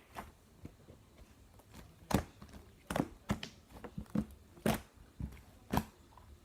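A series of short, sharp crunching clicks, about seven of them at uneven intervals of roughly half a second, starting about two seconds in.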